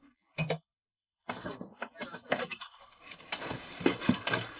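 Rustling and knocking of a cardboard box and paper as a manual is pulled out of it, starting about a second in and going on irregularly with many small clicks.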